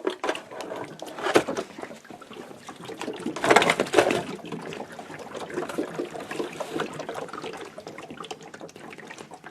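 Water pouring out of the refilled tanks of a Vornado Evap40 evaporative humidifier as they are tipped upside down into its base. It is loudest about three and a half seconds in, then runs on more evenly and slowly fades.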